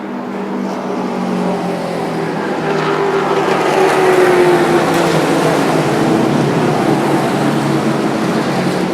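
Vintage Indy race car engine running hard. It grows louder over the first few seconds, and its pitch drops around the middle.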